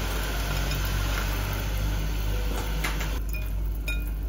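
Soybean sprouts tipped from a bowl into a pot of water, with a few light clinks of the bowl against the pot about three and four seconds in, over a steady low hum.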